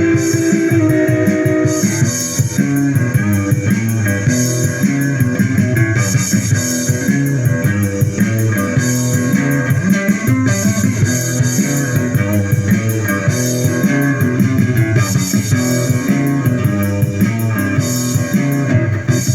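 Instrumental rock music led by guitar, with a bass guitar line.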